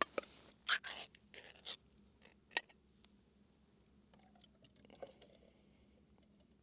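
A can of soup and a cooking pot being handled: scattered clicks, clinks and scraping, with one sharp clink about two and a half seconds in, then fainter rustling.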